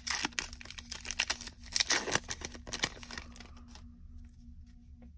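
Wrapper of a Topps baseball card pack torn open and crinkled by hand, a dense crackle of small clicks that dies down about three and a half seconds in.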